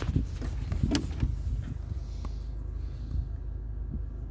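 A few sharp clicks and knocks in the first second or so as a handheld OBD-II code scanner is handled, over a steady low hum.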